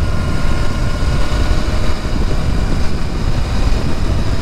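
Royal Enfield Interceptor 650's parallel-twin engine holding a steady note at highway cruising speed, under a heavy rumble of wind on the microphone.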